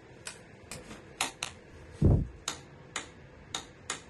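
Torque wrench ratcheting the long 17 mm engine-mount bracket bolt toward 40 lb-ft: about nine sharp clicks, a little over two a second, with a duller knock about two seconds in.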